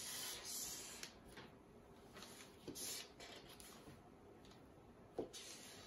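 Felt-tip marker drawn across chart paper, faint scratchy strokes as letters are lettered, with a short knock about five seconds in.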